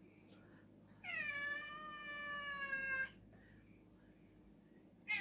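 A cat meowing: one long, drawn-out meow about a second in that dips in pitch at the start and then holds, and a second meow starting near the end.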